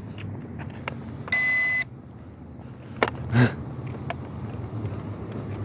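A single electronic beep, held for about half a second, from the drone's remote controller, over a steady rumble of wind on the microphone. A sharp click and a short thump follow about midway.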